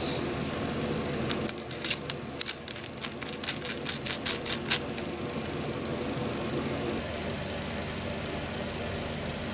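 A quick run of small metallic clicks and taps, about fifteen in three seconds, from small metal parts being handled on a workbench. A steady low hum lies underneath.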